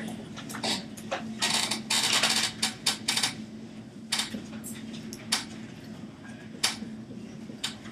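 Dry-erase marker writing on a whiteboard: a quick run of scratchy strokes, then single short strokes about once a second, over a steady low hum.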